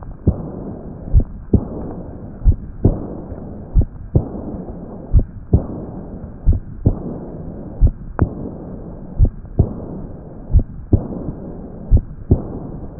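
Heart sounds with an early decrescendo diastolic murmur of aortic regurgitation, here due to Marfan syndrome. Paired beats repeat about every 1.3 seconds, and after each second sound a murmur starts and fades toward the next beat. One sharp click comes about eight seconds in.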